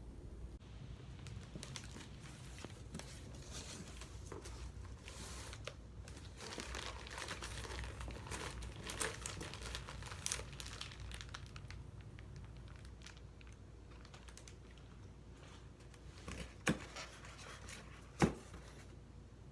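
Packaging being handled during an unboxing: crinkling and tearing of wrapping, busiest in the middle, followed by two sharp knocks near the end.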